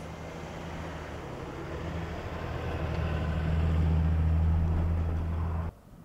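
Engine of a Ram chassis-cab dump truck running as it drives along a snow-covered road: a steady low hum that grows louder over the first four seconds or so, then cuts off suddenly near the end.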